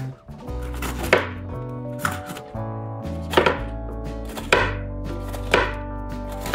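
Knife slicing sweet peppers into rings on a cutting board: a sharp knock as each cut strikes the board, about one cut a second, six in all, over soft background music.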